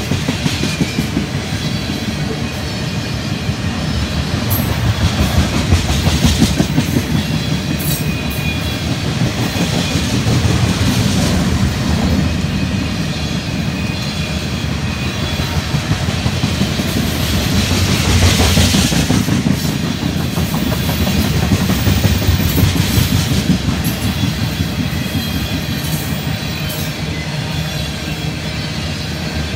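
Freight train of tank cars rolling past, a steady rumble of steel wheels on rail that swells and eases a little as the cars go by.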